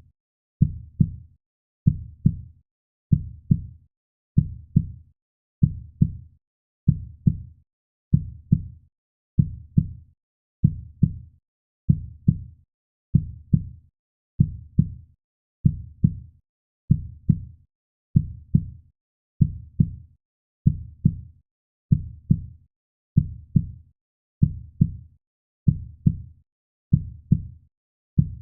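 Steady heartbeat sound: a low double thump (lub-dub) repeating evenly about every one and a quarter seconds.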